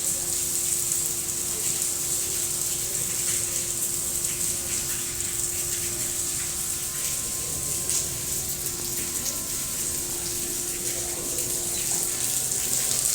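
Heavy rain pouring down steadily, with a faint steady hum underneath that fades out near the end.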